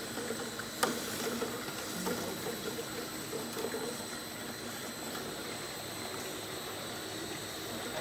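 Automatic bottle-filling line running: a steady machine hum from the rotary bottle table and conveyor, with a sharp clack about a second in.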